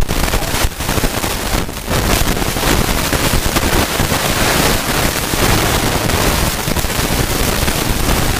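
Fire extinguisher discharging in one continuous loud hiss, starting suddenly, while it is sprayed onto a burning vehicle.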